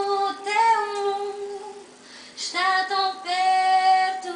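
A young woman singing unaccompanied in Portuguese, two long held phrases with a short break about two seconds in, heard through a television's speaker.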